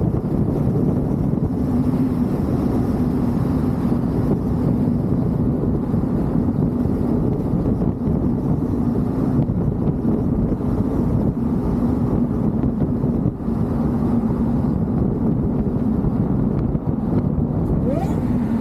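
Supercharged V8 of a 2004 Ford SVT Lightning pickup running at a steady speed, a constant even drone, with wind noise on the microphone.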